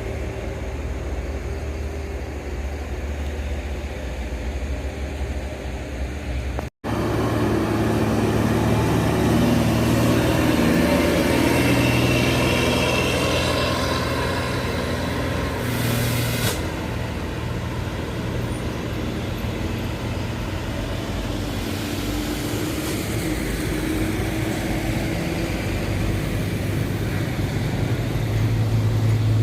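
Heavy diesel road vehicles running past on the road: a steady engine drone, a sudden break, then louder engine sound that swells around ten seconds in, with a short hiss about sixteen seconds in.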